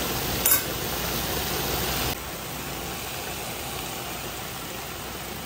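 Diced chicken breast browning in oil in a frying pan, giving a steady sizzle that drops a little in level about two seconds in. One brief click about half a second in.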